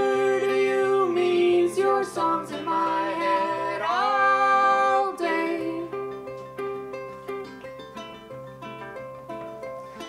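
A man singing long, sliding notes with no clear words over a plucked string instrument. The singing is strongest in the first half and grows quieter after about five seconds, leaving softer picked notes.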